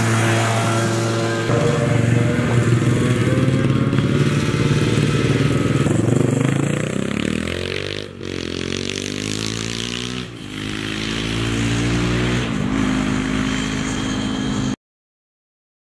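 Go-kart engine revving as the kart pulls away and runs down the road, its pitch climbing and dropping several times. The sound cuts out abruptly about a second before the end.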